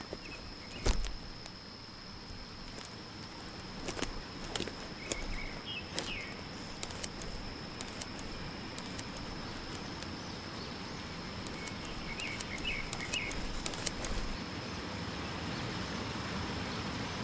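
Footsteps and twig snaps on a forest floor, with small bird chirps over a steady high insect drone. A rushing water noise slowly builds in the second half as a waterfall is approached.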